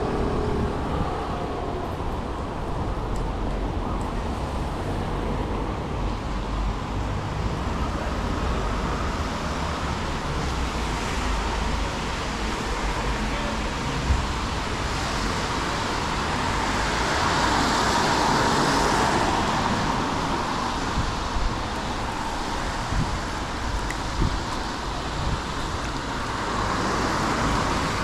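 Street traffic on a wet road in the rain, a steady noisy hiss with low rumble; a vehicle swishes past about two-thirds of the way through, its tyres hissing louder on the wet surface before fading.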